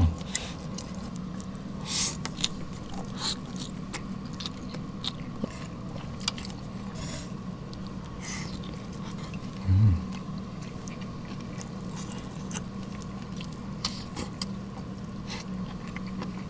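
Close-miked chewing and eating of cooked shabu-shabu beef, with scattered small clicks and snaps as wooden chopsticks touch a ceramic dipping bowl. A steady low hum runs underneath, and there is one brief louder low sound about ten seconds in.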